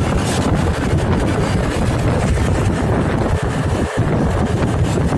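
Wind buffeting the microphone over steady engine and road noise, recorded on the move.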